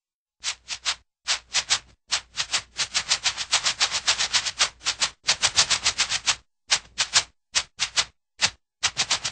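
Cartoon dog sound effect: a rapid run of short, hissy bursts, about five a second, in uneven groups broken by brief gaps and growing sparser near the end.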